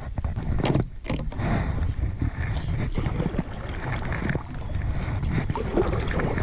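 Wind buffeting the microphone in a steady low rumble, with a few sharp knocks about a second in.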